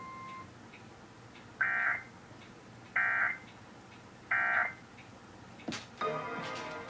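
Emergency Alert System end-of-message signal: three short, identical bursts of buzzing digital data tone about a second and a half apart, each far louder than the hum between them. A steady electronic tone cuts off about half a second in, and a new pitched sound starts near the end.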